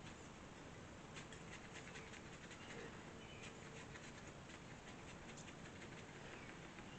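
Faint, quick scratching clicks of dry fatwood being scraped and handled, as fine shavings are worked up for fire tinder.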